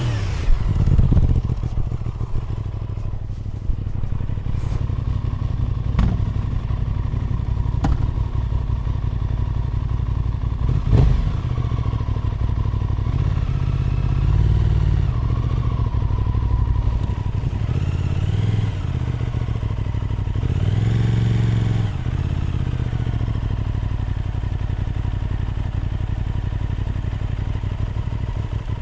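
Aprilia RS 660 Extrema's parallel-twin engine through an SC Project exhaust, riding at a steady easy pace. There are three short sharp knocks in the first half and a few brief rises and falls in revs in the second half.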